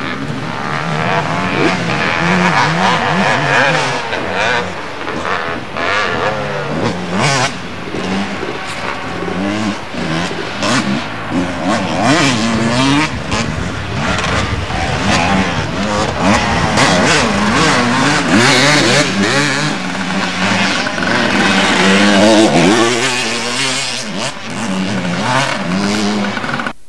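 Motocross motorcycles racing past, their engines revving hard, the pitch rising and falling again and again as they accelerate and shift, with more than one engine heard at once. The sound cuts off suddenly at the end.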